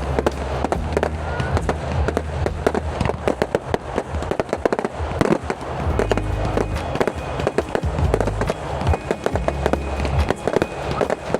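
Fireworks display: a rapid, continuous string of bangs and crackles from exploding shells, over music with a heavy bass line.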